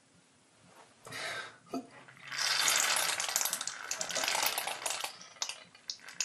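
Air and blood sputtering and crackling out of a freshly cut wound in the side of the chest, a bronchopleural cutaneous fistula letting air from the lung escape through the skin. A short burst about a second in, then a loud crackling splutter for about three seconds that dies away in spurts.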